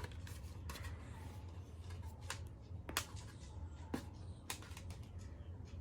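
Faint handling noises of a wireless neckband being freed from its packaging: scattered small clicks and crinkles, the sharpest about three seconds in, over a steady low hum.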